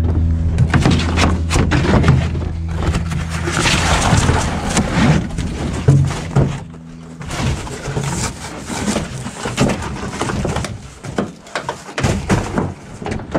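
Irregular knocks, clunks and rustling of things being handled, over a steady low hum that fades out about six seconds in.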